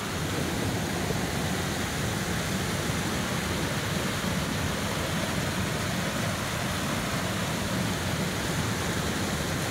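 Steady rush of white water from a small waterfall on a river, loud enough to drown out a voice.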